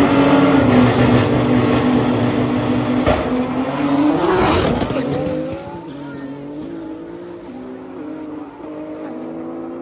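Twin-turbo Audi R8 and built Nissan GT-R launching from a standing start at full throttle, engines loud at high revs. Their pitch climbs about four seconds in as they pass, and they fade after about five seconds into fainter engine notes stepping up through the gears as they race away.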